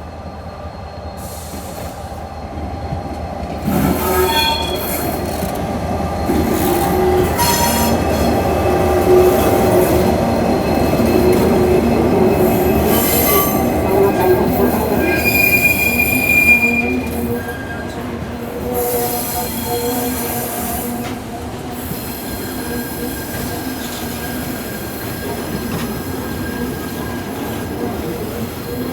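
Aurizon diesel locomotive 2350 passing with its train: engine and wheels rolling over the rails, with high-pitched squeals from the wheels on and off, the strongest a little past the middle. The sound grows loud a few seconds in and eases somewhat in the last third.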